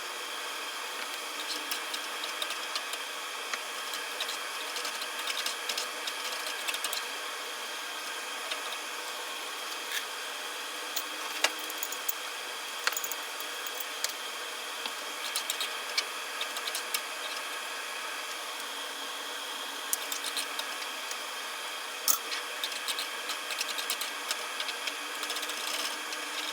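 Cooking in a pan: a steady hiss with many scattered clicks and scrapes of a utensil against the pan.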